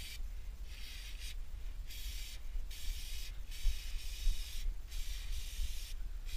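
Aerosol can of chain spray hissing onto a motorcycle's drive chain in about seven short squirts, each half a second to a second long, with brief pauses between them as the wheel is turned.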